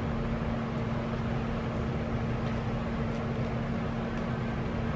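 Room air-conditioning unit running with a steady hum: one constant tone over an even rush of air.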